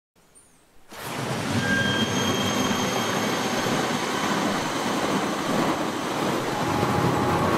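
Steady rushing outdoor ambience sound effect that fades in from silence about a second in, with a few faint short thin tones over it.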